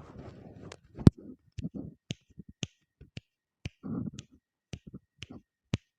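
Irregular sharp clicks and light taps, about a dozen scattered through, the loudest about a second in, some with a short dull knock beneath them.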